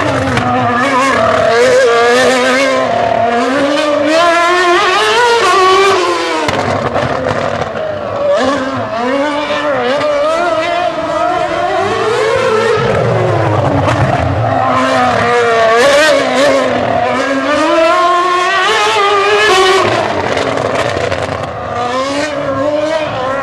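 Honda RA108 Formula One car's 2.4-litre V8 revving hard, its pitch rising and falling again and again as it accelerates and slows.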